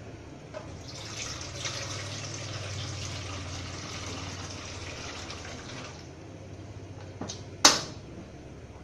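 Water pouring for about five seconds, a splashing hiss over a low steady hum. Near the end comes a single sharp clack, the loudest sound.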